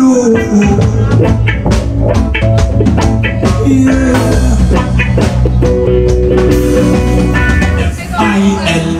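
Live band playing amplified music: electric guitars and a singer over a heavy bass line and drums. The bass and drums drop out about a second before the end.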